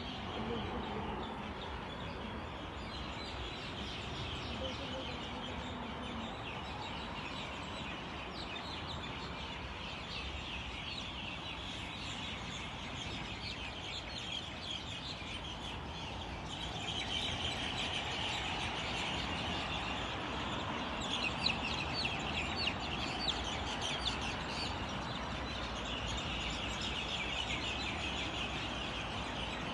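A dense chorus of many birds calling and chattering at once, short calls overlapping without pause and growing louder about halfway through. A low rumble of wind on the microphone runs beneath.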